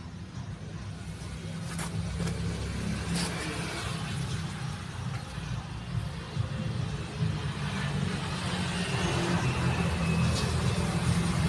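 A steady low rumble, much like a running engine, that slowly grows louder, with a few faint clicks.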